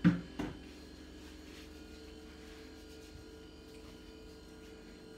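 Two quick knocks at the kitchen sink, then a steady electrical hum with several steady tones while hands are washed.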